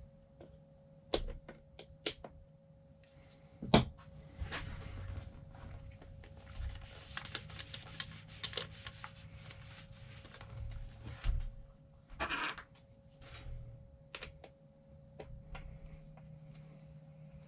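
Parts of a suspension seatpost being handled and fitted together by hand: scattered clicks and light knocks with some scraping, the sharpest knock about four seconds in.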